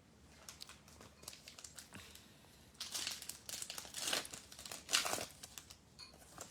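Plastic wrapper of a football trading card pack being torn open and crinkled, in scattered crackles that grow into a louder run of crinkling from about three to five seconds in.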